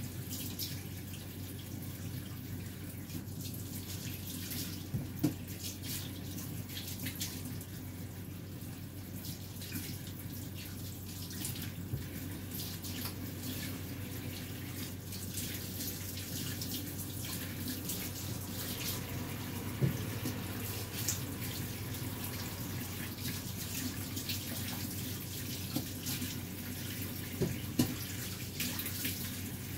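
Water running steadily from a tap into a sink, with a few short knocks and clinks.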